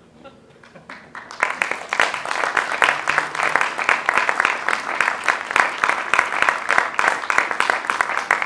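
Audience applauding, the clapping breaking out about a second in and holding steady.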